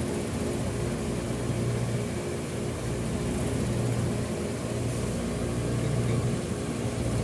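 A machine running steadily: a low, even motor hum with a faint steady hiss over it.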